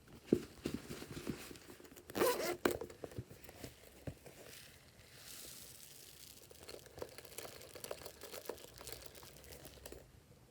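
Glossy slime being worked and mixed, with irregular sticky crackling and popping. A louder burst of crackles comes about two seconds in, and a finer crackle runs through the second half before easing off near the end.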